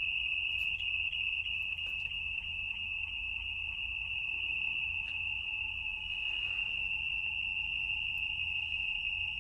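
Steady high-pitched electronic tone, like a piezo beeper, held without a break, with faint ticks about three times a second in the first couple of seconds.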